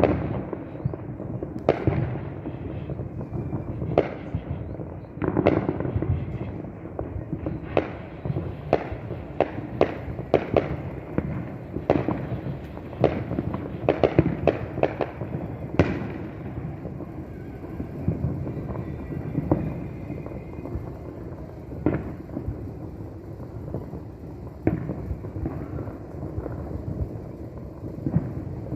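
Fireworks show heard from a distance: a dense run of sharp bangs over a continuous rumble, thinning out after about halfway to scattered booms.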